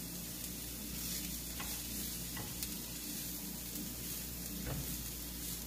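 Chopped mushrooms, shallots and herbs sizzling steadily in olive oil in a frying pan while a silicone spatula stirs them, with a few faint ticks of the spatula against the pan.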